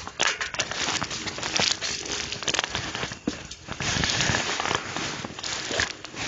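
Rustling and crackling movement noise on a body-worn microphone, with many sharp irregular clicks.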